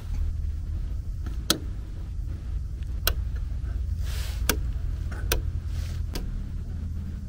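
Wall light switches clicking as they are pressed, five sharp clicks a second or so apart, over a steady low hum.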